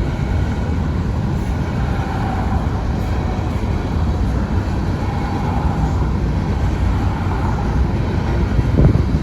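Union Pacific grain train's covered hopper cars rolling past, a steady heavy rumble of wheels on rail, with a brief louder surge near the end.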